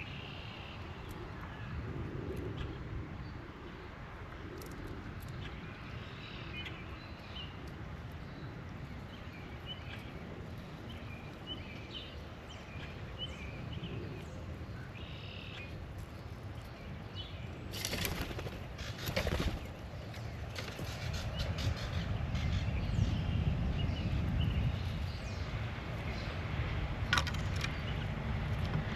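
Birds at a water bowl: short, scattered chirps, then a flurry of wingbeats about two-thirds of the way through as a bird flaps off. Low wind rumble on the microphone grows over the last part.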